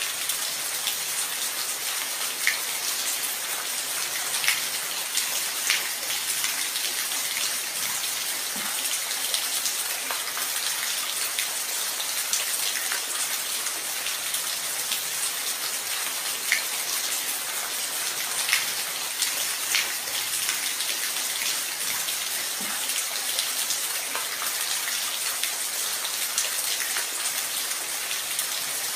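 Steady rain: a continuous hiss with distinct drops ticking and splatting irregularly against a surface.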